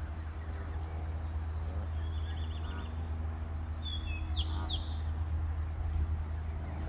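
Small songbirds calling over a steady low rumble: a quick high trill about two seconds in, then a few sharp, falling chirps a little past halfway.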